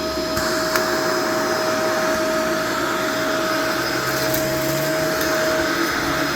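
Shark Vertex upright vacuum running steadily while vacuuming carpet, its motor airflow with a constant whine.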